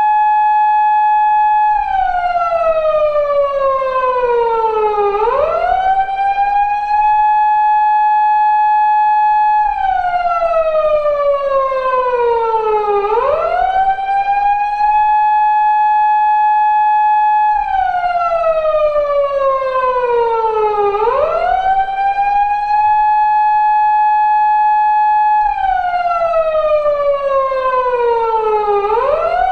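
Japanese police car siren of the kind fitted to 2000s patrol cars such as the 170- and 180-series Toyota Crown, wailing in a repeating 8-second cycle: a held high tone, a slow fall in pitch, then a quick rise back up. The cycle repeats about four times.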